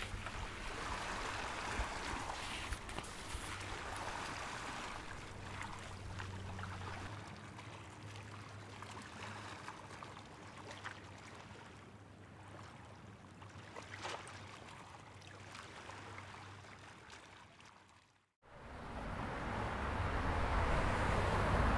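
Seaside ambience: a soft, even wash of water and waves under a steady low hum, slowly fading. Near the end it cuts off to a moment of silence, then a louder low rumble of street traffic swells in.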